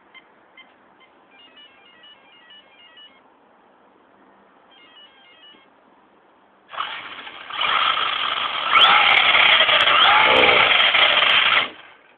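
Two short runs of quick electronic beeps, typical of a Traxxas Slash's Mamba brushless ESC arming through the motor. About seven seconds in, the brushless motor and drivetrain run up into a loud whir for about five seconds, with a few rises and falls in pitch, then cut off suddenly.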